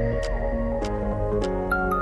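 Background music: soft ambient instrumental with held notes and light ticking accents.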